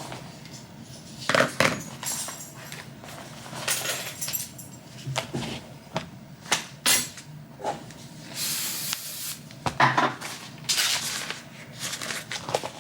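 Household handling sounds: a string of irregular knocks, clicks and clinks of hard objects being moved and set down, with a couple of short hissing rushes late on.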